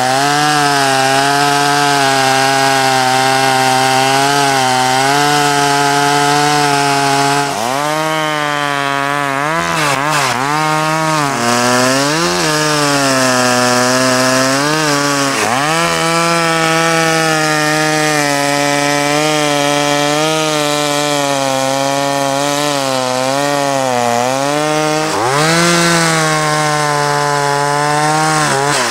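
Stihl two-stroke chainsaw running near full throttle, cutting into the base of a tree trunk. Its engine note dips in pitch several times as the chain loads up in the wood and then recovers, and it falls away at the very end.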